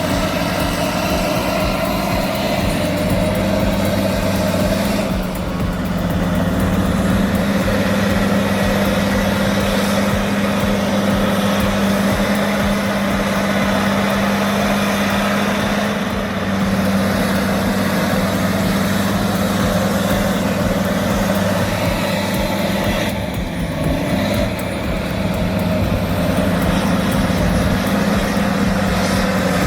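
Heavy construction machine's diesel engine running steadily with a low, even hum.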